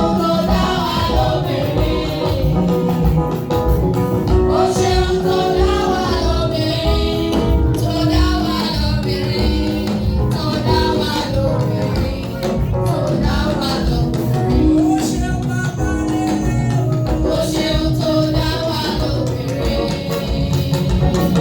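Church choir and band playing a praise song: singing over a steady, driving beat.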